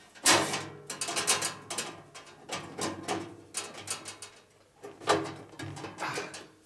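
Irregular clusters of sharp metal clicks and rattles as a bandsaw blade is worked through the blade guides and table slot of a 1960s Boice-Crane 14-inch bandsaw, the blade catching on the parts around it. The loudest clatter comes just after the start.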